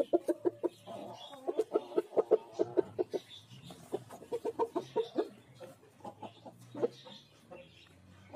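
Shamo game rooster clucking in quick runs of short clucks, about six a second, broken by brief pauses.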